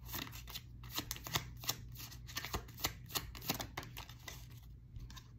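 A tarot deck being shuffled by hand: a quick, irregular run of soft clicks as the cards slide and knock together, thinning out shortly before the end.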